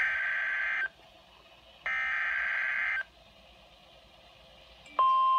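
Emergency Alert System signal on a NOAA weather radio broadcast: two buzzy, roughly one-second bursts of SAME header data tones with quiet between them. Near the end the single steady warning alert tone starts, announcing a severe thunderstorm warning.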